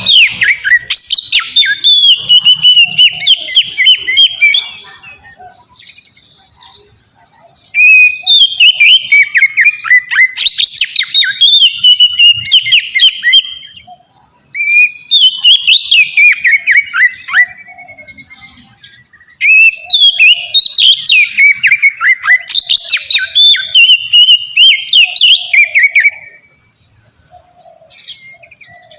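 Oriental magpie-robin (kacer) singing its full, free-flowing song, known as ngeplong: rapid, varied whistled phrases in four long bouts separated by short pauses. A longer quiet gap comes near the end.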